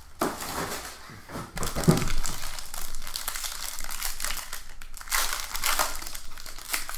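Foil wrapper of a football trading-card pack being torn open and crinkled by hand, in several irregular bursts of rustling.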